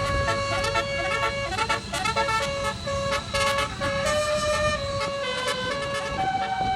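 Indonesian bus telolet (basuri) multi-tone air horn playing a tune: a long held note, then a run of short quick notes, then held notes again, stepping up in pitch near the end. The bus engine runs underneath.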